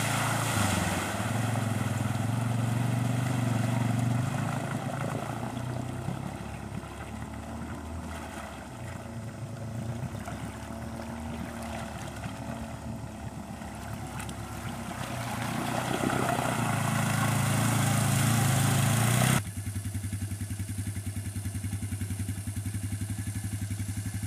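Single-cylinder engine of a Suzuki LT-Z250 ATV running as the quad is ridden through a seat-deep water hole, fading as it moves off and growing louder as it comes back. About nineteen seconds in the sound cuts abruptly to an engine idling close by with an even putter.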